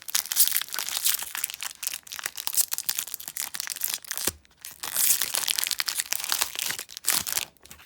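Foil booster-pack wrapper of Pokémon cards crinkling and tearing as it is worked open by hand: a dense, loud crackle with a short break about four seconds in.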